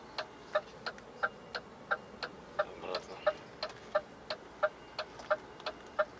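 Indicator ticker in a DAF truck cab clicking steadily, about three ticks a second: the on-off ticking of the turn signals or hazard lights.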